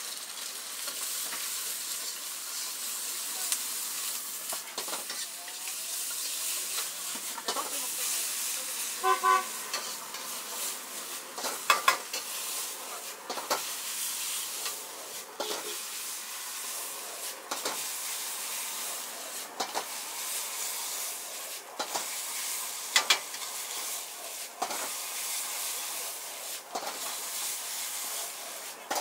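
Egg fried rice sizzling in a wok over a gas burner, with a metal ladle scraping and clanking against the wok every second or two as the rice is stirred and tossed. A short pitched beep comes about nine seconds in.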